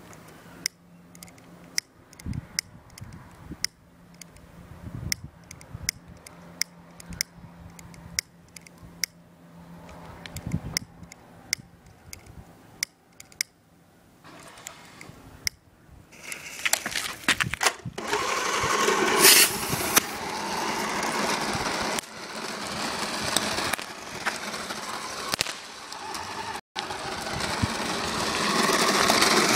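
Repeated sharp clicks of a lighter being struck at the fuses of rocket fireworks fitted in a radio-controlled car. About halfway through, a much louder, steady rushing noise with a whine starts: the RC car's motor and tyres as it drives over asphalt.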